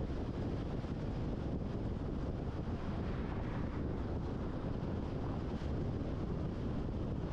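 Steady wind and road noise of a moving car, a low rumble with wind buffeting the microphone.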